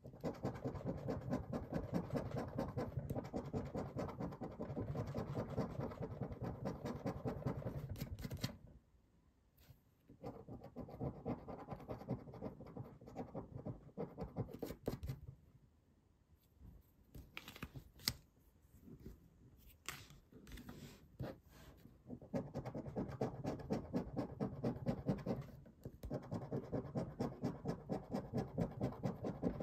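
A coin scraping the coating off paper Banco scratch cards in rapid back-and-forth strokes. The scraping comes in several spells broken by short pauses, with a few light clicks in the middle as the cards are handled.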